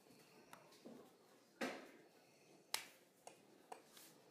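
A few sharp snaps and slaps of a person's hands, about six scattered through otherwise near silence, the loudest about a second and a half in.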